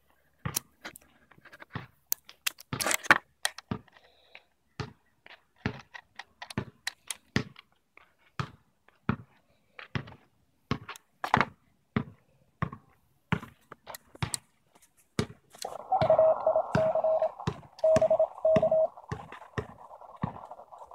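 A string of small clicks and knocks from coax cable, connector and radio being handled. About three-quarters of the way in, the receiver audio of an Elecraft KX3 transceiver comes on. It is band hiss through a narrow CW filter, with a steady tone coming and going in short dashes.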